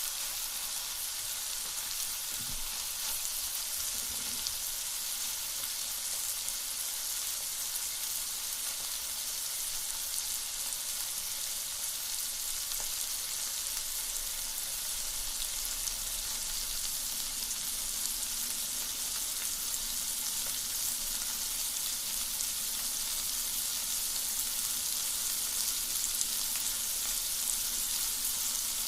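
Meat sizzling steadily as it cooks over a wood fire, a continuous hiss.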